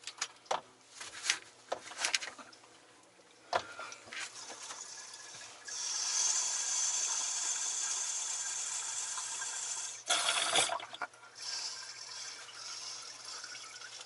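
Distilled water poured from a plastic bottle into the cells of a lead-acid starting battery that was low on water. A steady trickle starts about six seconds in, swells briefly near ten seconds and runs on, after a few light clicks and knocks from handling the bottle over the cells.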